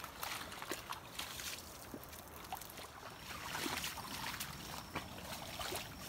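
Shallow muddy water trickling and running down a forest trail, with scattered soft clicks and squelches from bare feet stepping in the mud.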